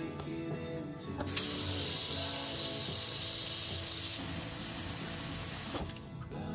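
Water running from a kitchen tap for about four seconds, its hiss thinning partway through, over background music.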